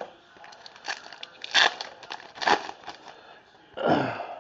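Trading cards and their packaging being handled: a few short crinkling, rustling swipes, with a longer and fuller one near the end.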